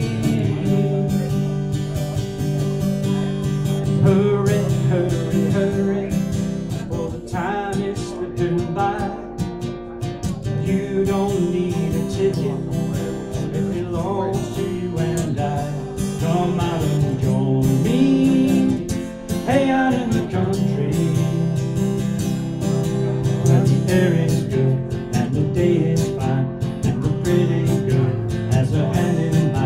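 Acoustic guitar strummed steadily in an instrumental passage between sung verses of a song.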